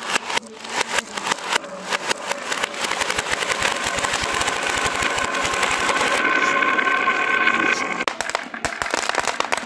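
Many glass marbles rolling and clattering down zigzag grooves carved in pine boards. Scattered clicks build into a dense, continuous rattle with a ringing hum near its peak, then thin back out into separate clicks near the end.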